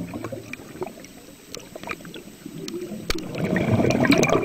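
Water sloshing and splashing, dipping and then swelling up again toward the end like a wave, with a few sharp splash clicks.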